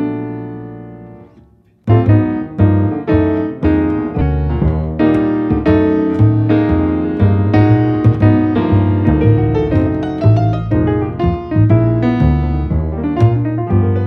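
Piano music: a held chord fades away over the first two seconds, then a new passage of evenly paced notes and chords begins.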